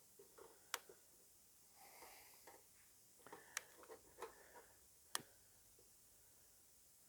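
Faint handling of a bee smoker as it is being relit: three sharp clicks spread over a few seconds, with soft rustling between them.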